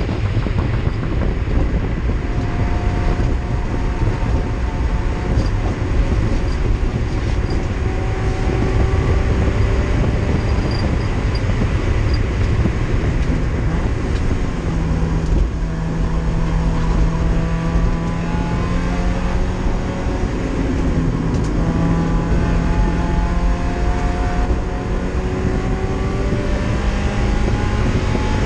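Race car engine heard from inside its stripped, roll-caged cabin, running hard at track speed under loud road and wind noise. Its pitch climbs again and again as it revs out through the gears.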